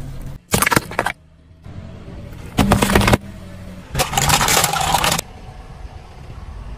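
A car's tyre rolling over and crushing objects, over a low steady engine rumble. There are three loud crunching, crackling bursts: about half a second in, near the middle, and a longer one of about a second starting four seconds in, as plastic candy jars are flattened.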